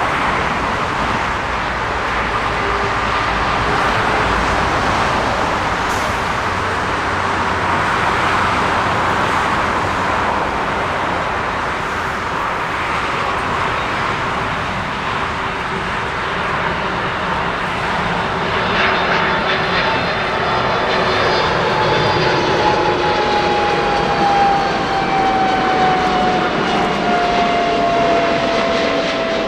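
Jet airliner's engines running loud and steady as it passes close by, with a whine that falls slowly in pitch through the second half as the aircraft goes past.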